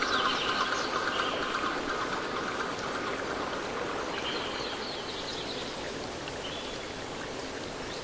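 Steady rushing of running water, like a stream, with a few short bird chirps, as the tail of a music track fades out in the first second or two.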